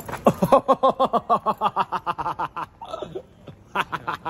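A man laughing hard, a rapid run of "ha-ha" pulses for a couple of seconds, then a short second burst of laughter near the end.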